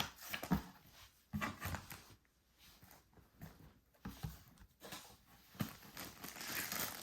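A few soft knocks and light rustles, scattered and irregular, from a gift package being handled.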